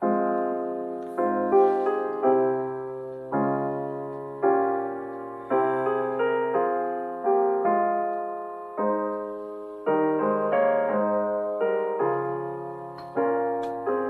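Slow instrumental piano music: chords struck about once a second, each left ringing and dying away.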